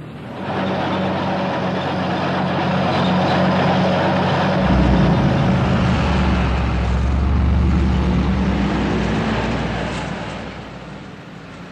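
Engines of a column of military vehicles running as they drive through, a steady hum joined by a heavier low rumble about halfway through that fades near the end.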